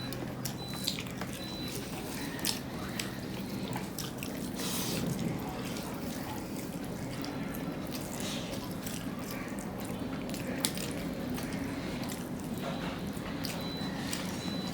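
Wet squelching and smacking of people eating fish curry with rice, with scattered small clicks.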